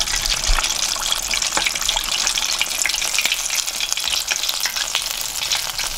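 Breaded chicken wing deep-frying in hot oil: a steady, dense crackling sizzle with many tiny pops.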